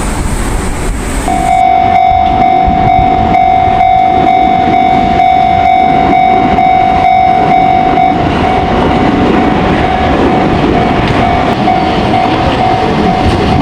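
Level-crossing warning bell ringing steadily while an Enoshima Electric Railway train runs past with a rumble. About eight seconds in, the bell grows fainter as the train's rumble grows louder.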